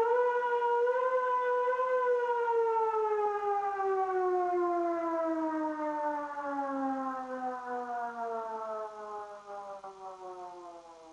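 Russian civil defence warning siren sounding the 'Attention everyone' signal. Its tone holds for about two seconds, then slides steadily lower and fades away.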